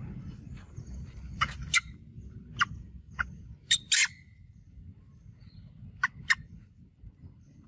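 Short, sharp high animal calls, mostly in quick pairs, with a few seconds of quiet between groups, over a faint low background rumble.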